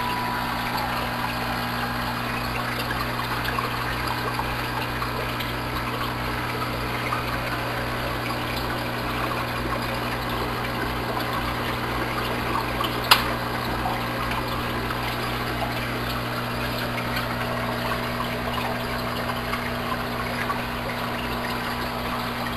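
Aquarium air pumps humming steadily while air diffusers and filters keep the water bubbling and trickling. A single sharp click a little past halfway.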